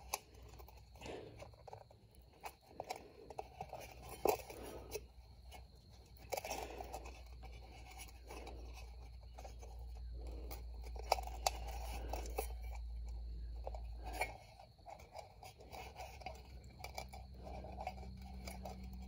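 Faint scattered clicks and scrapes of hands working a loose seal back into place on a small ATV's rear brake assembly. A low steady hum runs through the middle.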